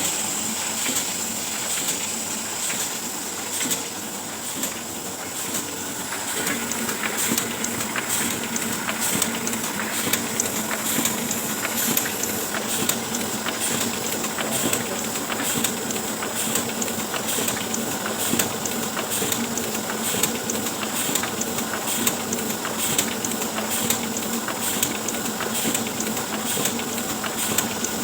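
Oliver 72 sheet-fed offset printing press running steadily during a colour pass: a constant hiss and whir with regular rapid clacks as sheets feed through.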